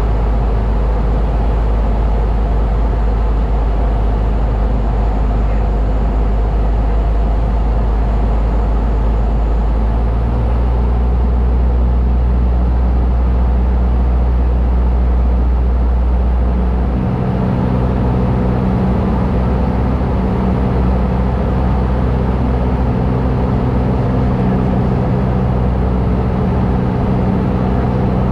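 A Cessna light aircraft's piston engine and propeller drone steadily, heard inside the cabin. The engine note changes about ten seconds in and again about seventeen seconds in, as the power setting shifts.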